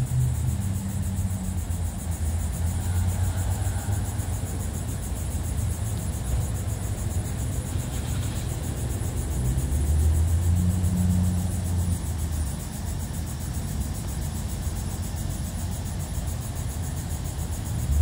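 Low rumble of a motor vehicle's engine running, with a steady hum that grows louder about ten to twelve seconds in.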